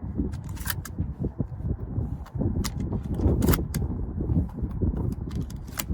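Wind buffeting the microphone in a low, steady rumble, with a few scattered sharp clicks and knocks.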